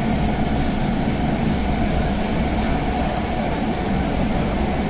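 Athens Metro Line 2 train running, heard from inside the carriage: a steady rumble of wheels and running gear with a low hum underneath.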